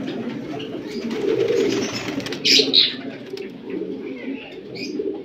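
Male magpie pigeon cooing, a steady rolling low coo. A short, louder high-pitched noise cuts in about two and a half seconds in.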